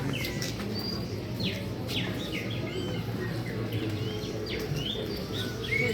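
Small birds chirping, many short high notes one after another, over a steady low background hum.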